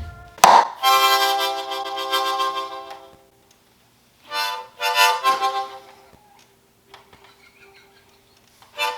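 A sharp hit about half a second in, a frying pan striking a shin, followed at once by a loud harmonica chord blown by the man who was hit, fading over about two seconds. Two shorter harmonica blasts follow a couple of seconds later as his pain reaction.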